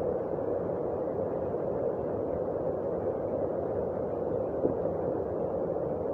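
Heavy rain falling steadily, an even rushing noise that neither builds nor fades.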